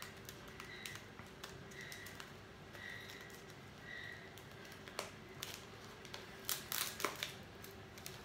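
Plastic wrapper of a tube of Ringo biscuits crinkling and tearing as it is opened by hand, a scatter of faint clicks and crackles that grow busier near the end.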